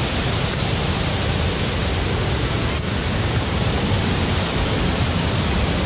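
Steady rushing of a waterfall: an even hiss of falling water with a low rumble beneath it.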